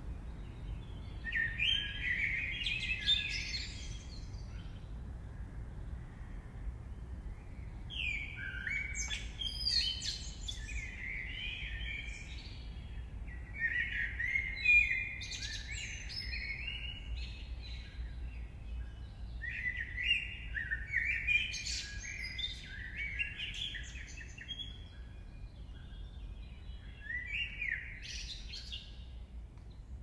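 A songbird singing at dawn in phrases of a few seconds, about five with short pauses between, over a steady low background rumble.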